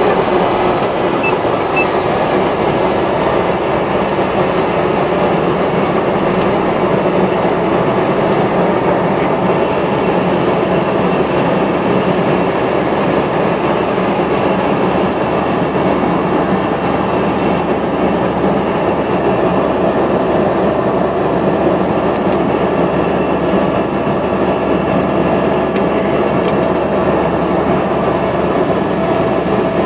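Cessna Caravan floatplane's turboprop engine and propeller running steadily at low power while it taxis on the water, heard from inside the cockpit.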